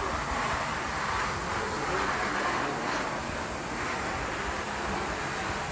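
Bennett R660B ride-on wet floor scrubber running: a steady machine noise with a rushing sound that swells and eases.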